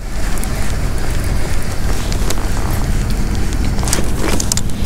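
Wind buffeting the microphone: a loud, steady low rumble that starts abruptly, with a few light knocks.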